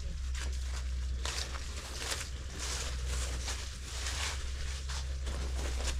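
Footsteps on outdoor ground, irregular soft steps under a steady low rumble.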